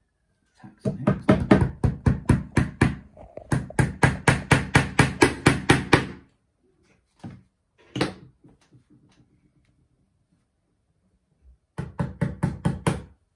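Small hammer tapping tacks into a wooden beehive frame: quick runs of light blows, several a second, for about five seconds. Then a single harder knock, a pause, and another quick run of tapping near the end.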